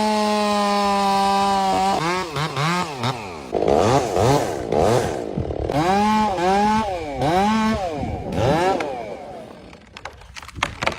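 Chainsaw engine held at full throttle for about two seconds, then revved up and down over and over. It drops away near the end, with a few sharp clicks.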